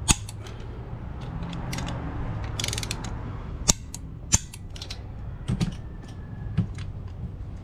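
Torque wrench tightening engine bolts: quick ratcheting strokes and several sharp clicks, the loudest right at the start and two more about four seconds in. Each click is the wrench breaking over as a bolt reaches its set torque.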